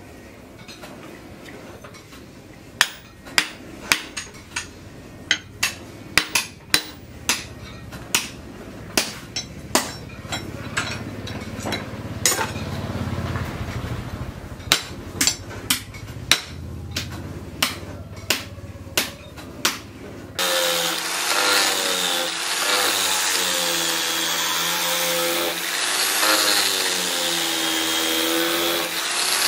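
Hand hammer striking repeatedly to seat the axe head onto its wooden handle: a series of sharp knocks, about one to two a second. About twenty seconds in, this gives way to an electric angle grinder with a sanding disc running against the wooden handle, its whine wavering up and down as the pressure changes.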